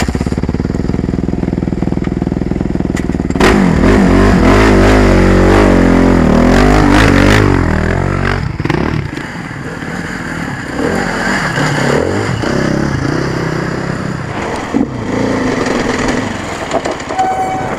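Dirt bike engine idling, then revved hard about three seconds in, the revs rising and falling for several seconds as the bike climbs a rocky ledge. Afterwards a dirt bike runs at lower, varying revs along a trail.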